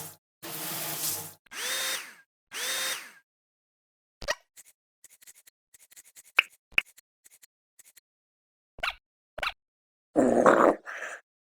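Cartoon sound effects: four short buzzing, drill-like bursts, two of them with a falling whistle, then scattered small clicks and short squeaks, and a louder noisy burst near the end.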